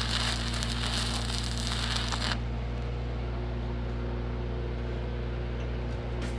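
Stick (shielded metal arc) welding arc crackling and hissing on a steel handrail, cutting off suddenly about two and a half seconds in as the rod is pulled away and the arc breaks. A steady low engine hum continues underneath throughout.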